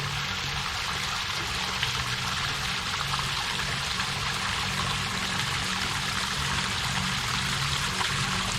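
Waterfall: water falling and rushing in a steady, even stream.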